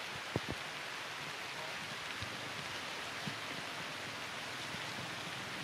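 Steady hiss of light rain falling through tree foliage, with two sharp drip taps about half a second in and a few fainter taps later.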